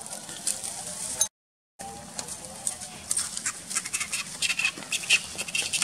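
Dry leaf litter crackling and rustling as macaques walk and scuffle over it, with short high chirps from about halfway. The sound cuts out completely for about half a second just over a second in.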